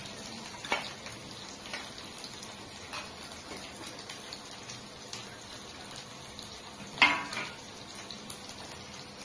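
Steel bowls and utensils clinking with water splashing as chopped long beans are washed, over a light steady sizzle of frying in a wok. About seven seconds in, a steel plate clanks down onto the floor, the loudest sound.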